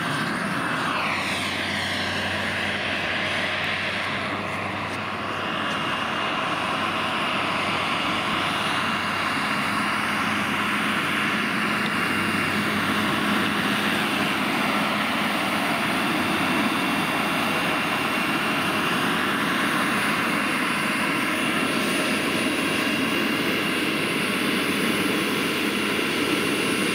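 PHT-3 model turbine of a large Hughes 500 scale RC helicopter running with a steady high whine. The whine drops in pitch during the first two seconds.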